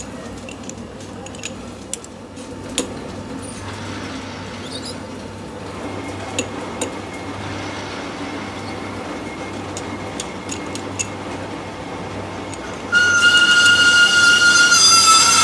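Sharp metallic clinks and clicks of a lathe chuck key and steel parts being handled at a stopped three-jaw chuck, over a steady low workshop hum. Near the end, background music with a held, whistle-like melody comes in and drowns the workshop sounds.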